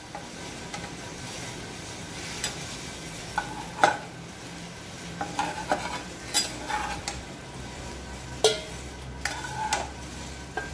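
Flat metal spatula scraping and knocking against a nonstick kadai as a steamed egg slab is broken up and the pieces are lifted, a dozen or so short scrapes over a low steady sizzle of oil in the pan.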